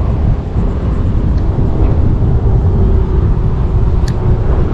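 Wind buffeting the microphone: a loud, steady rough rumble, with one sharp click about four seconds in.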